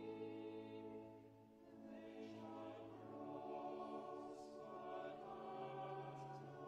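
Cathedral choir singing slow, held chords; one phrase dies away about a second and a half in before the next begins.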